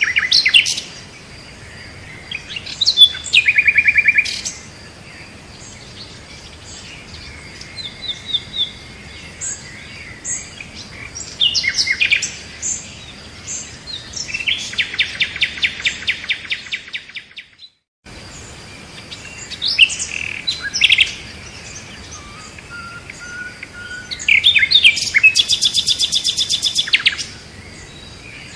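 Birds chirping and calling, with bursts of fast, rapid-note trills now and then over a faint steady high tone. The sound cuts out for a moment about two-thirds of the way through.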